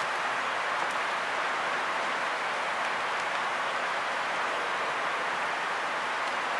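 Steady hiss of rain. A few faint clicks and rustles of paper and plastic CD sleeves being handled.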